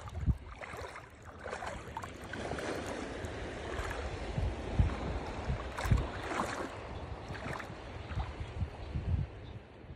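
Shallow sea water lapping and splashing gently over sand at the water's edge, with wind buffeting the microphone in irregular low thumps.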